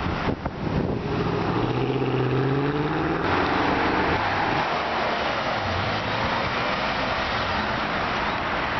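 A Mercedes sedan's engine accelerating hard, its note rising over about three seconds. After an abrupt change, a Porsche 911 GT3's flat-six runs as the car drives by, over steady road noise.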